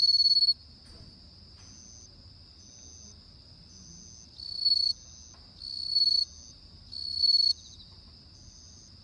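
Japanese bell cricket (suzumushi) singing: four loud, high ringing bursts of about half a second each, every one swelling and then stopping abruptly, over a steady high trill of insects.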